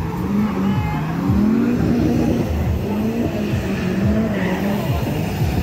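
Drift car engine revving hard, its pitch climbing and dropping again and again.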